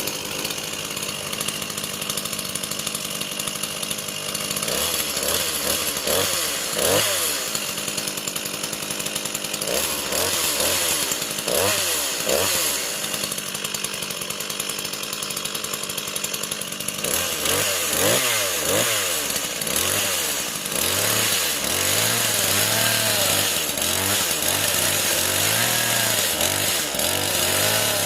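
Small Stihl mini chainsaw's two-stroke engine on a test run: idling at first, then revved up and down in several bursts, and running steadily at higher speed near the end.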